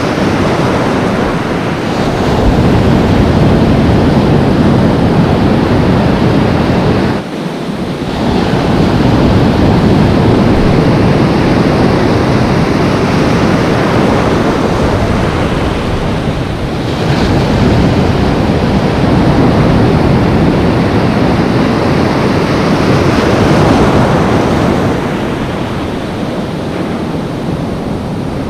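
Loud ocean surf: strong waves breaking and foaming through the shallows, swelling in long surges with brief lulls about seven and seventeen seconds in.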